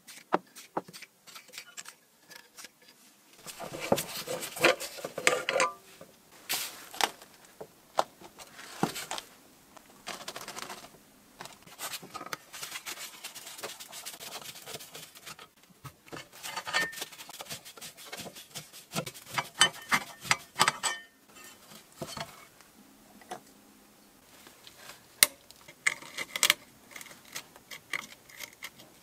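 Hand tools working on the rusty steel blade housing and base plate of a Makita 4190D cordless circular saw: irregular scraping, sharp metallic clicks and small clattering knocks as a screwdriver and a pick pry at the corroded parts.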